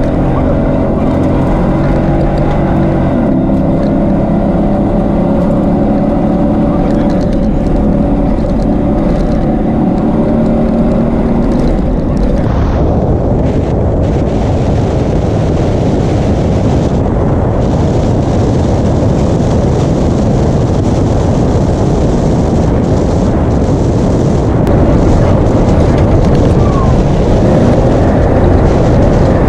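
Toyota Tacoma rally truck's engine running hard at a steady pitch, heard inside the cab. About twelve seconds in, the engine tone gives way to a loud, even rush of wind and tyres over sand, which grows a little louder near the end.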